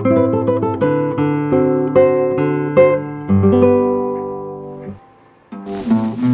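Acoustic plucked-string trio playing an instrumental introduction: picked melody notes over chords, ringing out into a held note that fades. After a short pause near the end, the trio comes back in with strummed chords.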